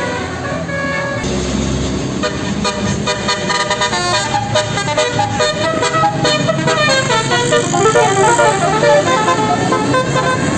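Bus 'telolet' Basuri musical air horn playing a quick melody of changing notes. From about a second in, the notes come faster and the run grows busier.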